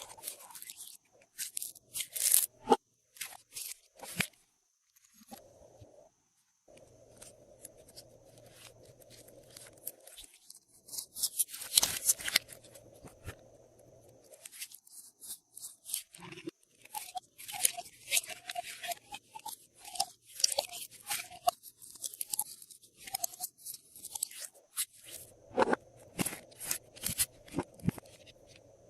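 Glossy slime being squished, folded and pressed by hand with add-ins mixed in, giving irregular sticky clicks, crackles and crunches, some in quick clusters.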